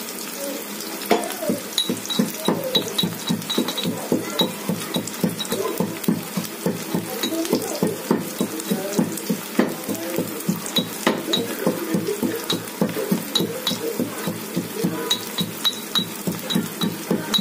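Onions frying in oil in a kadhai with a steady sizzle. From about a second in, quick regular clinks of a metal kitchen utensil come about two or three a second.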